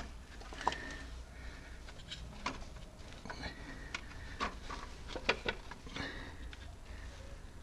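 Scattered light clicks, taps and rubbing of hands working a new toothed timing belt onto the crankshaft sprocket of a Renault 1.5 dCi diesel engine, seating the belt's mark on the sprocket's timing mark, with a cluster of clicks a little after the middle.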